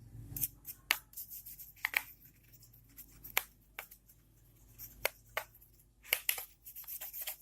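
Irregular sharp clicks and scratchy scrapes of hands working on an opened plastic laptop, some of them in quick clusters.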